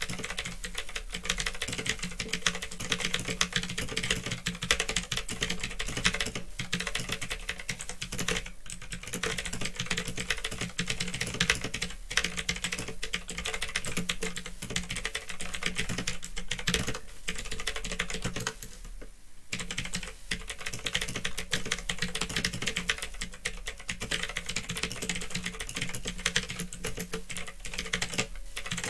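Fast typing on a Phantom Tecware 87 mechanical keyboard with clicky Otemu blue switches: a dense, continuous run of key clicks with a brief pause about two-thirds of the way through, over a steady low hum.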